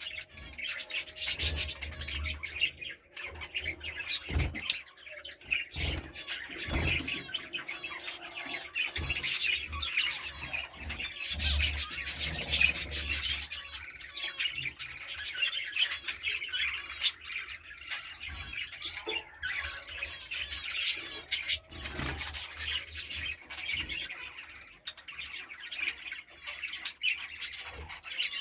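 A pair of lovebirds chirping and squawking continuously in quick, shrill calls, with a few knocks, the loudest about four and a half seconds in.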